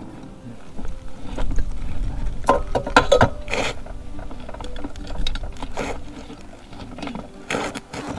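Tools and metal parts clinking and scraping as a motorcycle's rear wheel is worked off to repair a flat tyre, with a run of sharp metallic clicks and knocks a few seconds in and another just before the end.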